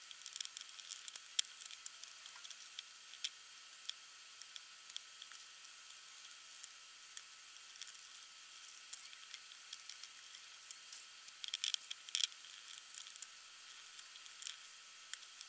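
Faint, scattered sticky crackles and small clicks of gloved fingers pressing resin-soaked chopped carbon fibre into a mould, with a denser cluster about twelve seconds in.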